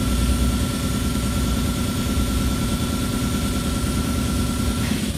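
A steady machine running, a low engine-like rumble with a thin high whine that stops near the end.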